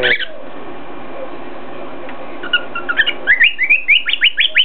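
Cockatiel whistling a fast run of short, upward-sliding notes, about four a second, starting about halfway through over a steady background hiss.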